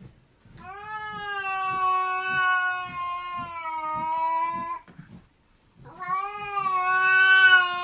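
Cat yowling: two long, drawn-out meows, the second starting about six seconds in.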